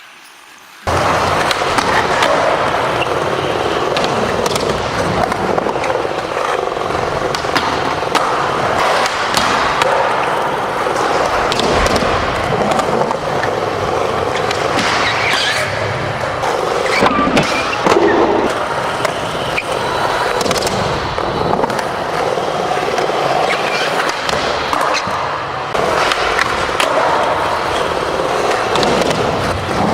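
Skateboard rolling on a concrete skatepark surface: a steady rumble of wheels, broken by sharp clacks of tail pops, landings and board impacts, several close together around the middle.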